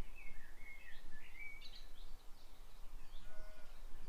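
Birds singing in short chirping, whistled phrases over a steady background hiss.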